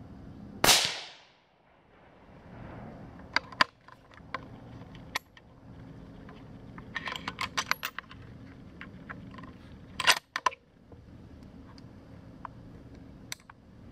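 A single rifle shot, sharp and loud, its report rolling away through the woods for about a second. It is followed by scattered sharp clicks and knocks, with a quick run of them around the middle and another pair a few seconds later.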